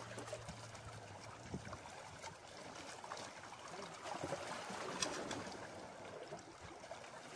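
Small sea waves lapping and splashing against shore rocks, a steady watery wash with a few sharp clicks, the loudest about five seconds in.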